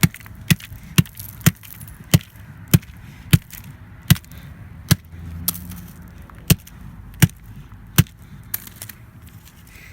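A flip phone being struck hard about a dozen times in quick succession, sharp knocks at roughly two a second that space out a little in the second half.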